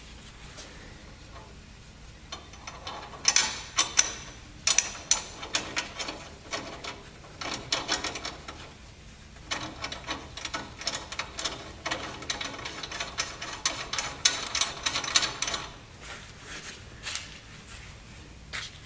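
Loose steel U-bolt hardware, washers and nuts, clinking and rattling as it is handled and fitted by hand onto new leaf-spring U-bolts. Irregular sharp clicks come in clusters starting a couple of seconds in, with a short break near the middle and a few single clicks near the end.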